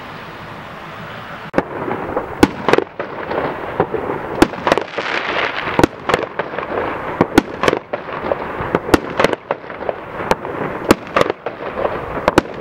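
Aerial fireworks going off: from about a second and a half in, a fast, irregular run of sharp bangs with crackling between them, after a steady hiss at the start.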